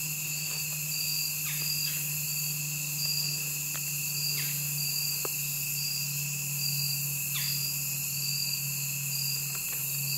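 Late-summer insect chorus of crickets and similar insects: a steady high-pitched buzz with a chirp pulsing about every two-thirds of a second. A steady low hum sits beneath, and a few faint short sounds come and go.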